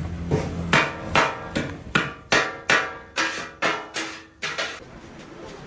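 Kottu roti being chopped on a flat griddle with metal blades: about a dozen ringing metallic clangs, roughly three a second, stopping after about four and a half seconds.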